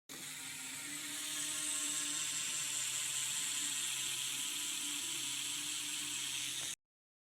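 BMX wheel spinning freely, a steady whir from the hub and tyre that cuts off suddenly near the end.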